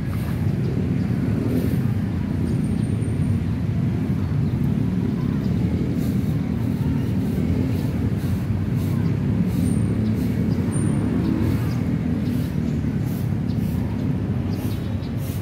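Steady low rumble of outdoor street noise: road traffic, with wind on the microphone.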